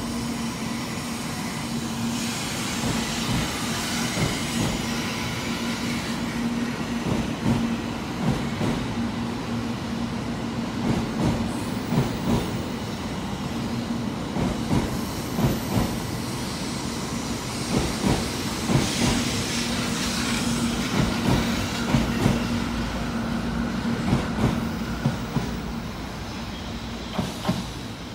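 A JR West 700 series Hikari Rail Star Shinkansen pulling out of a station and passing close by: a steady hum with many short wheel clicks. It grows quieter near the end as the last car moves away.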